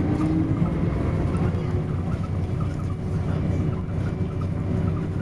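Volvo B10BLE bus engine and ZF automatic gearbox heard from inside the saloon while under way: a steady low drone with a faint whine riding over it.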